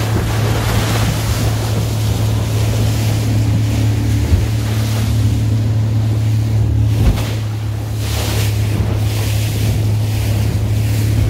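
Motorboat engine running with a steady low hum, over the rush of water and wind. Gusts of wind hit the microphone in surges in the second half.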